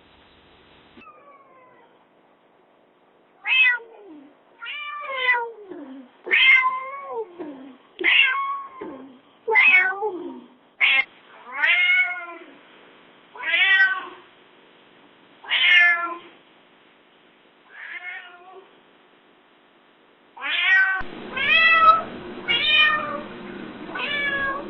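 Domestic cats meowing: a series of about a dozen separate meows, many sliding down in pitch, with short pauses between them. Near the end a different recording begins with a steady background hiss and quicker meows.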